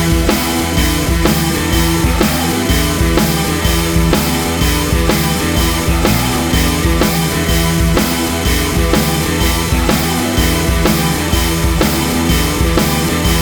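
Rock music with drums and guitar, a steady driving beat.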